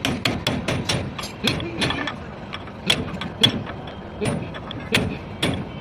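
Irregular sharp metallic clicks and knocks, several a second, some with a short ring, from hand-tool work on a Tata tipper truck's leaf spring.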